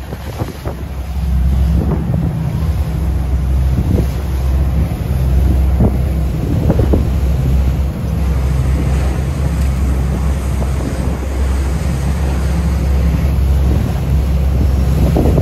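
Boat engines running steadily as the boat travels at about 15 mph, a low drone under heavy wind buffeting the microphone and water rushing in the wake. A few light knocks can be heard now and then.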